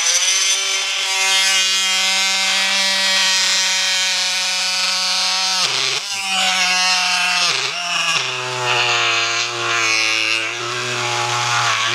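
Cordless oscillating multi-tool (Milwaukee M18) driving a wide high-carbon-steel blade in a plunge cut along the grain of dry wood, a steady buzzing whine. The pitch dips several times around the middle and then runs lower for the rest as the blade bogs down under load, with a rough vibration the user feels as the blade meets something in the wood.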